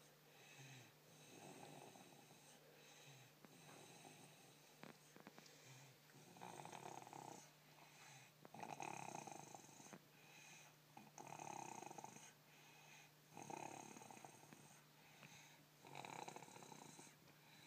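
Faint, rhythmic snoring, one snore roughly every two and a half seconds, growing louder about six seconds in.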